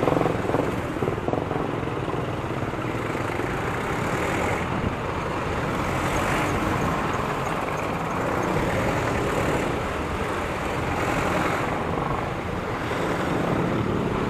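Yamaha Aerox 155 scooter's single-cylinder engine running as it rides slowly through city traffic, under a steady rush of road and traffic noise.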